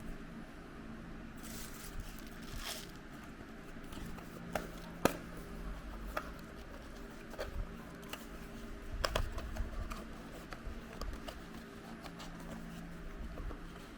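Hands handling small plastic toys and packaging: scattered clicks, taps and light rustling, with the loudest tap about five seconds in and a cluster of knocks a little after nine seconds, over a faint steady hum.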